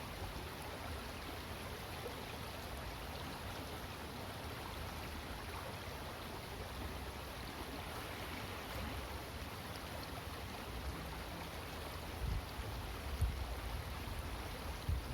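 Steady rush of flowing water, an even hiss without a rhythm, with a few dull low bumps near the end.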